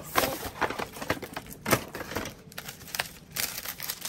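White tissue paper and paper packing rustling and crinkling as they are handled and pulled apart, with a couple of sharper crackles.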